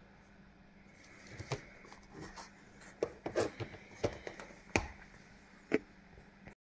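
Small clicks and taps from a dimple lock and lockpicking tools being handled, scattered about once a second and faint.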